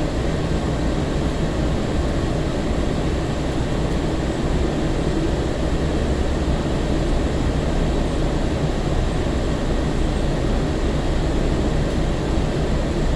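Steady running noise inside a 2002 Breda LRV3 light-rail car: a constant rumble of wheels on rail with a low hum, as the train rolls toward its last stop.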